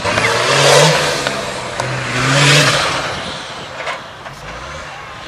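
Off-road 4WD truck engine revving hard in two surges as it drives the course, then dying down.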